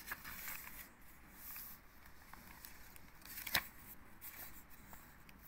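Paper rustling as a hardback picture book's page is turned and pressed flat, followed by a single sharp click about three and a half seconds in.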